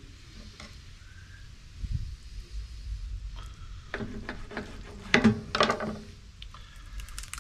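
A knife cutting raw armadillo meat off the bone on a plastic cutting board, with a run of sharp scrapes and clicks of the blade against the board about four to six seconds in. A low handling thump comes a couple of seconds in.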